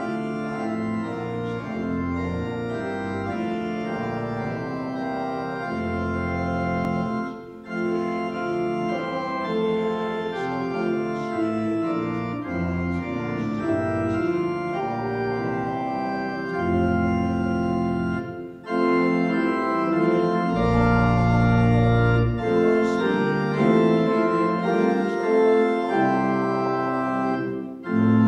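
Organ playing a hymn in sustained chords, with short breaks between phrases about 7 and 18 seconds in and again near the end.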